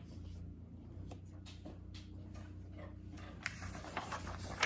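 A picture book's page being turned: faint paper handling and a few soft clicks over a low steady hum.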